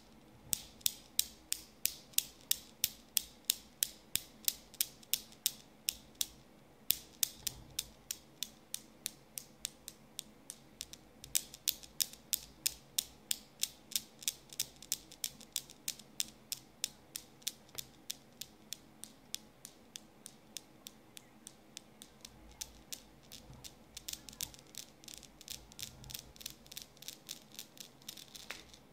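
Metal balls of a Newton's cradle clacking against each other in a steady rhythm, about three clicks a second. The clicking stops briefly twice and starts again as the balls are set swinging anew, grows fainter in the middle and comes back stronger near the end.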